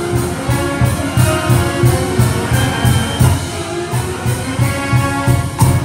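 A student concert band of woodwinds, brass and percussion playing a lively piece over a steady beat, finishing on a loud accented final stroke near the end.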